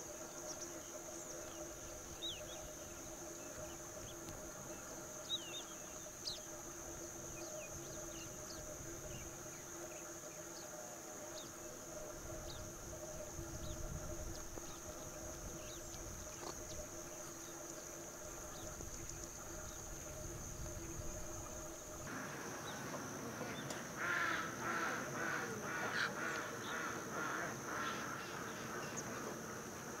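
Outdoor field ambience: a steady high insect drone with faint scattered bird chirps over a low steady hum. About 22 seconds in, the background changes and harsh bird calls repeat a few times a second, growing louder.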